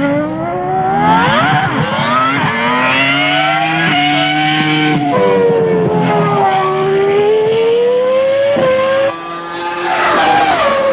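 Ferrari F300 Formula 1 car's V10 engine at high revs, the pitch climbing and then dropping sharply at several quick upshifts. About halfway through the pitch sags as the engine comes off the throttle. It then climbs hard again near the end.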